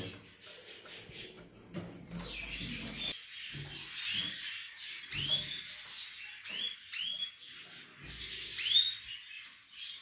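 Caged finches (canaries and goldfinches) chirping: a string of short, arched calls, the loudest about four, five and nine seconds in, with soft clicks between them.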